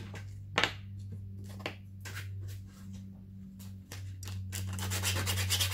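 Small clicks and rustles of parts and tools being handled. About four seconds in, a 3D-printed plastic part starts being rubbed back and forth on a sheet of sandpaper in quick strokes, sanding it down so it will seat fully. A steady low hum runs underneath.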